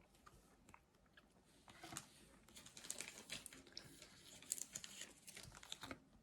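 Trading cards being handled by hand: faint scattered clicks and crinkly rustles, starting about two seconds in.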